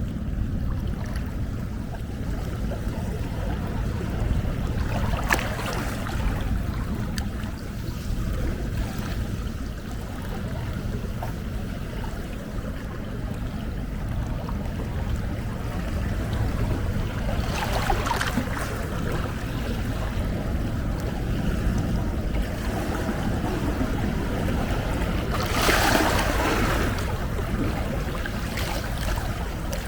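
Sea waves rolling in with a steady low rumble of surf. Waves break and wash up about five seconds in and again around eighteen seconds, and the loudest breaks a few seconds before the end.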